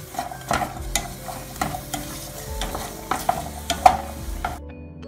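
Wooden spatula stirring and scraping diced onion, garlic and butter around an aluminium saucepan, with the sizzle of the butter frying them; it cuts off suddenly near the end.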